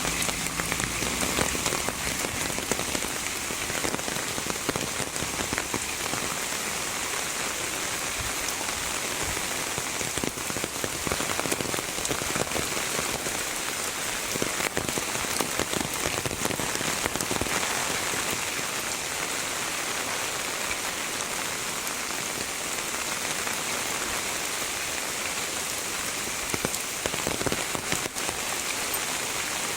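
Heavy rain falling steadily, a dense hiss with many separate drop hits.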